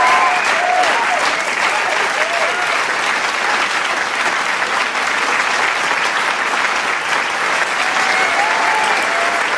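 Large crowd applauding steadily, with whoops and cheers rising over the clapping at the start and again near the end.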